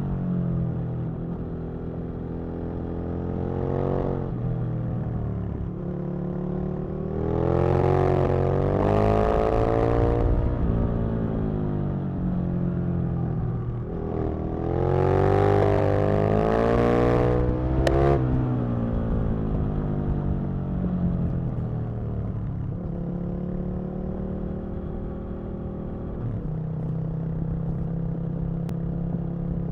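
Aprilia RSV Mille's 998 cc V-twin engine heard from the rider's seat, pulling hard through the gears twice, its pitch climbing in steps and then falling away as the throttle closes. It runs steadier and lower at the start and near the end, with a sharp click about eighteen seconds in.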